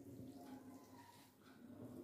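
Near silence: a faint steady room hum, with faint soft squishes of cooked rice being mixed by hand on a plate.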